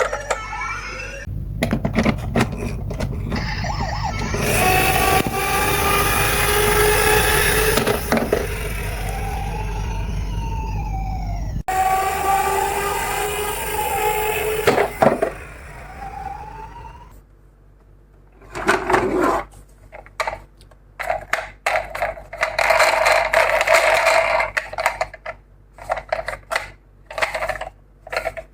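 Ambulance siren wailing, several tones gliding up and down, over the rumble and clatter of miniature toy cars rolling down a slope. The siren stops about two-thirds of the way through, leaving scattered clicks and short bursts of clatter.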